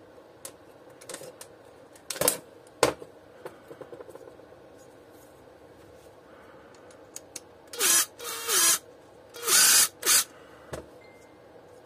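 Makita LXT cordless impact driver spinning in four short bursts, unscrewing the screws of a vacuum cleaner's plastic switch and regulator housing, its pitch dropping as each burst stops. Two sharp knocks come earlier, about two seconds in, as the housing is handled.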